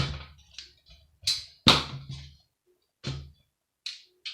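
A few separate knocks and clatters as dismantled electronics parts are handled and put down, with quiet gaps between them. The sharpest knock comes a little under two seconds in.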